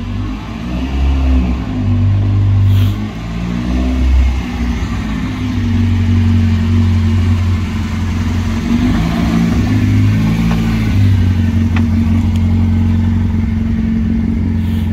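Mk1 Ford Escort engine and exhaust driving slowly past at close range. Over the first few seconds the revs are blipped up and down, then it settles into a steady low rumble.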